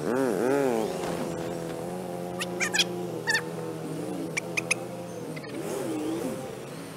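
Motorcycle engine running, heard at four times normal speed, its pitch swinging quickly up and down in the first second, then running steadily. A few short high chirps come in the middle.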